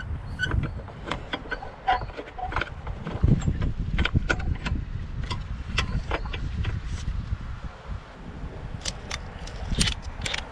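Irregular metallic clicks and clinks of hand tools and parts being handled while a car battery is fitted, over a low rumble of wind on the microphone.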